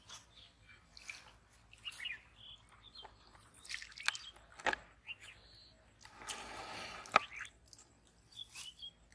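Quiet pondside ambience with scattered short bird chirps, broken by a few small sharp clicks and a brief rustle about six seconds in.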